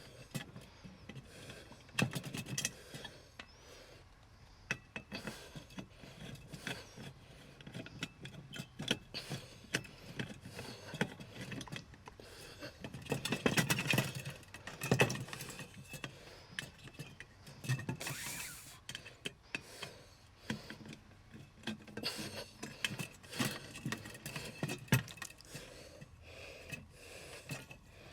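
Irregular clicks, light knocks and scrapes of hand tools and metal parts being handled while a gas water heater is taken apart, with a busier stretch of clattering about halfway through.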